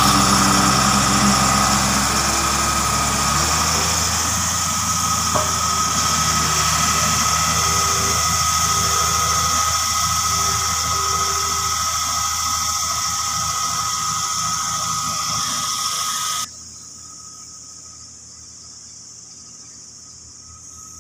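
Engine of a heavy construction machine running steadily, with a high whine over a low engine hum. About three-quarters of the way in, the sound drops suddenly to a much quieter steady hum.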